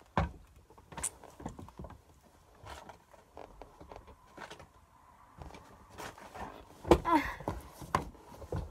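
Scattered bumps, knocks and rustling of a person shifting about and handling things right at the microphone, with one short vocal noise about seven seconds in.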